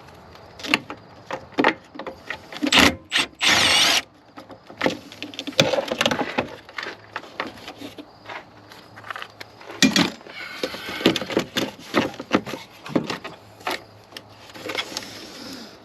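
Hands working on car parts: irregular clicks, knocks and rattles of plastic and metal. About three seconds in there is a loud stretch of noise lasting under a second.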